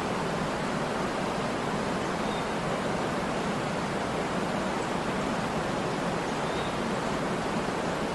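Waterfall: water falling and splashing in a steady, even rush with no change in level.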